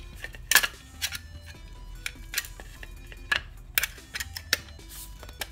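Irregular sharp clicks and knocks of a rifle handguard and its metal heat shield being worked onto the barrel and into the front trunnion, about six over a few seconds.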